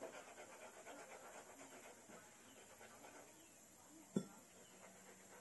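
Faint handling noise from a chrome metal tube: a quick rhythmic rasping for the first couple of seconds, then a single sharp knock about four seconds in.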